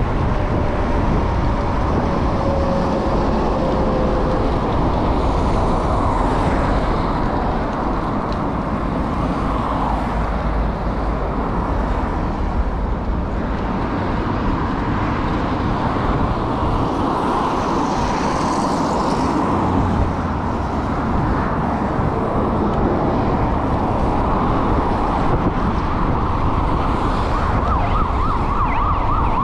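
Bafang BBS02 750W mid-drive e-bike motor whining under load, under a steady rush of wind on the microphone, while the bike rides off-road. Near the end the whine wavers up and down in pitch.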